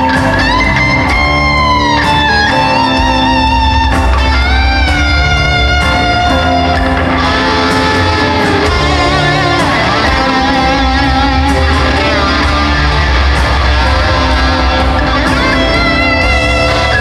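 Live rock band playing in an arena: lead electric guitar holds long notes and bends them up and down over bass and keyboards, the sound filling out and thickening about seven seconds in.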